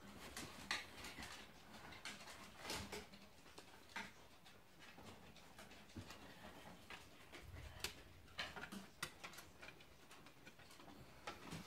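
Sleeping puppy making faint, scattered little whimpers and snuffles as it dreams.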